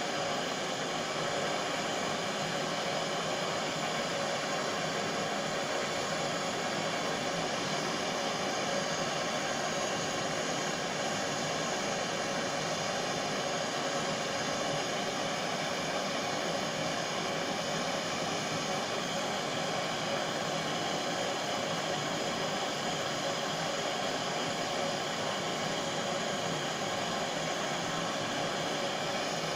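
Butane blowtorch flame burning steadily with a constant, even hiss, heating a crucible to melt a tin-silver-antimony solder bar back down.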